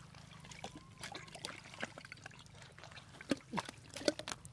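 Wet mud squelching and sloshing as hands dig in a waterlogged hole, with irregular slaps of fish flopping on mud; the loudest slaps come in the last second or so.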